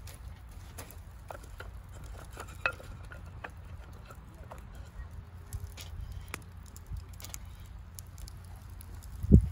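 Scattered light clicks and taps over a steady low rumble, with one heavy low thump near the end.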